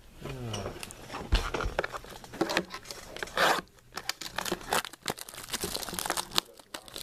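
Plastic wrapping and packaging crinkling and tearing as a trading-card box is opened, with scattered handling clicks and rustles.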